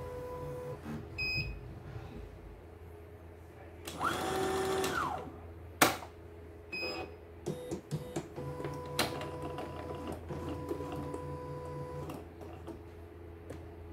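CNY E900 embroidery machine's embroidery unit, its motors humming steadily in stretches; about four seconds in a louder whir rises and falls in pitch as the carriage moves, followed by a sharp click and a few lighter clicks.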